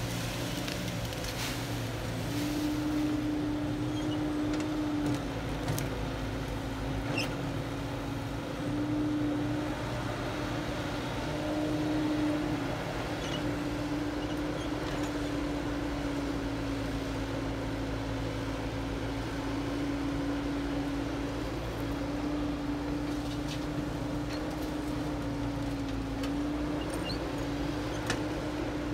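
Diesel engine of a Caterpillar hydraulic excavator running steadily while digging and loading, its drone stepping slightly up and down in pitch, with a few faint knocks scattered through.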